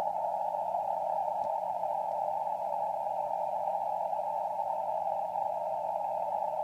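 An unidentified shortwave signal on 7.077 MHz, heard through a Kenwood R-1000 communications receiver. It is a steady, dense band of mid-pitched tones and hiss, squeezed into a narrow pitch range. The listener calls it repeating, musical tones and thinks it might be some sort of amateur radio mode.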